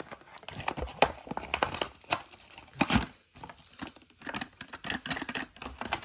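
A Hot Wheels blister pack being torn open by hand: the card tears and the plastic bubble crinkles in a run of irregular crackles and snaps.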